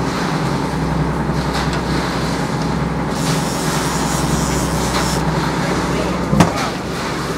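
Sportfishing boat's engine running with a steady low drone, and one sharp knock about six seconds in.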